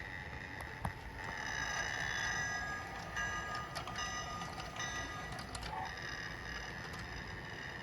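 Toy train running on its track: a small motor's steady whine with several high tones, and scattered clicks from the wheels and track, one sharper click about a second in.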